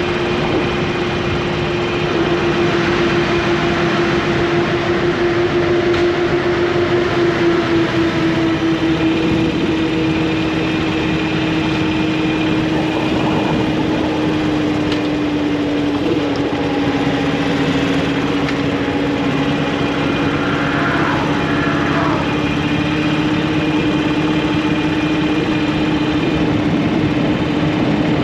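Motorcycle engine running at a steady cruise over a constant rush of wind and road noise. The engine note sinks slightly through the middle, as the bike eases off a little, then holds steady.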